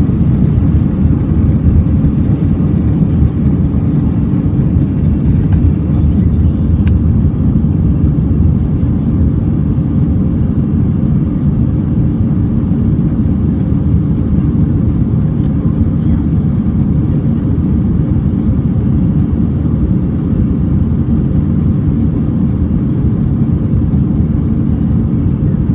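Steady, loud low rumble of an Airbus A319's jet engines and airflow, heard from inside the passenger cabin while the airliner climbs after takeoff.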